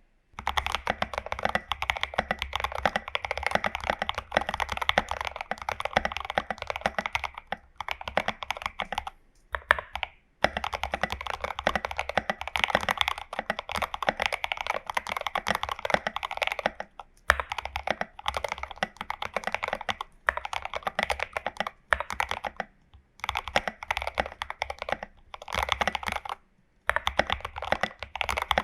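Continuous fast typing on a Glorious GMMK Pro mechanical keyboard with lubed and filmed Prevail Epsilon switches, tape-modded case and SA-profile keycaps: rapid key clacks in long runs, with brief pauses between bursts.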